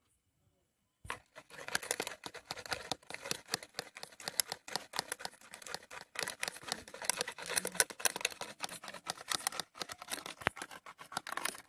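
Metal spoon beating a dalgona coffee mixture of instant coffee, sugar and hot water in a ceramic bowl: fast, continuous clicking and scraping strokes that start about a second in. The mixture is still runny and just beginning to lighten in colour.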